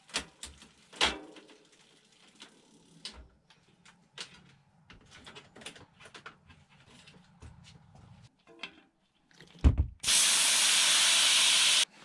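Small clicks and knocks of a mountain bike's rear wheel being handled and taken out of the frame, then a thump. After that comes a loud, steady hiss of air let out of the wheel's inner tube for about two seconds, which cuts off sharply.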